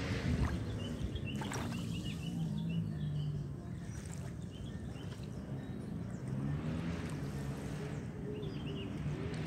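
A boat engine running steadily at low revs, with a few short bird chirps on top.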